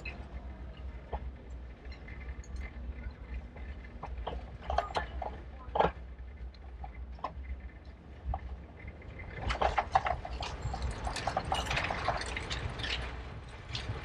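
Riding a bicycle on city streets: a steady low rumble of wind and rolling tyres with scattered clicks and rattles from the bike, a couple of sharper knocks about halfway, and a dense burst of rattling for a few seconds from about two-thirds in.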